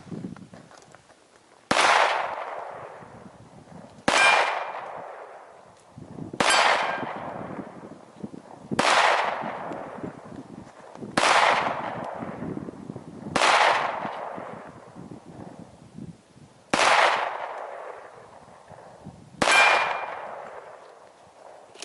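A .45 ACP 1911 pistol fired eight times, one shot every two to three seconds, each report trailing off. Steel plate targets ring after some of the shots.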